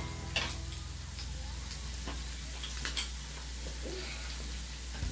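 Beef sizzling faintly on a tabletop griddle over a gas burner, under a steady low hum, with a few light utensil clicks about half a second in and again around two to three seconds in.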